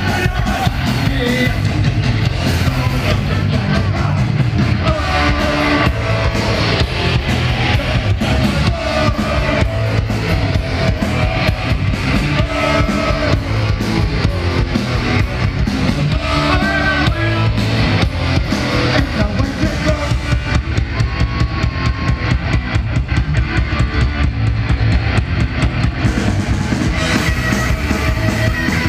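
Loud live rock band, guitars and drums amplified through a PA, heard from within the crowd. The high cymbal sound drops away for several seconds about two-thirds of the way through.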